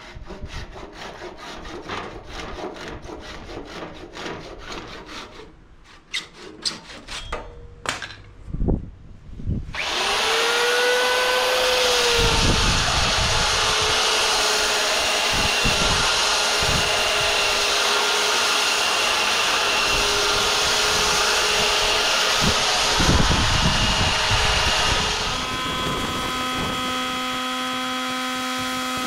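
A hand tool scraping across an ironbark slab in short separate strokes, then, about ten seconds in, an electric sander starts with a rising whine and runs steadily on the wood. Near the end the sanding noise drops away and a steady humming machine tone remains.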